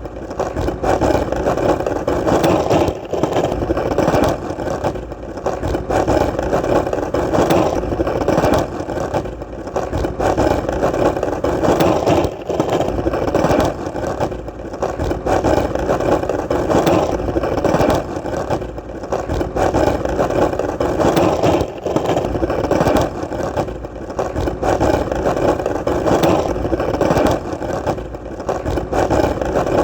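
Skateboard wheels rolling continuously over hard pavement: a steady gritty rumble broken by frequent small clicks from cracks and joints in the surface.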